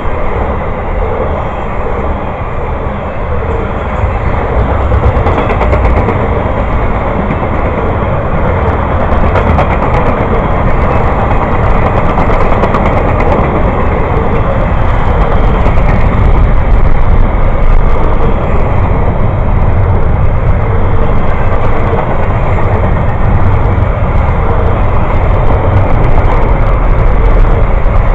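A passing train's cars rolling by: a loud, steady rumble of steel wheels on the rails, with faint clicking running through it.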